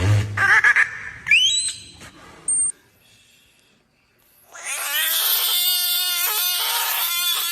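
Animal calls. A short rising whistle-like call comes about a second in. After a brief lull, a loud, long cry starts past the halfway point and breaks into several pulses near the end.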